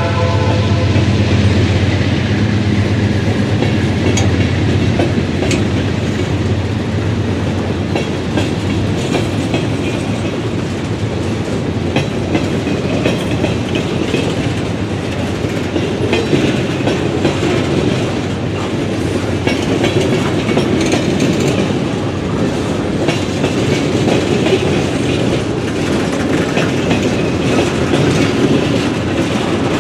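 Freight train's boxcars rolling past at steady speed: a continuous rumble of steel wheels on rail, with frequent clickety-clack clicks as the trucks cross rail joints.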